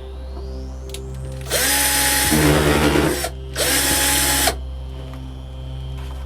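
Electric drill run in two short bursts, about a second and a half and then about a second, spinning up and winding down each time as it bores a hole into a 3D-printed plastic figure.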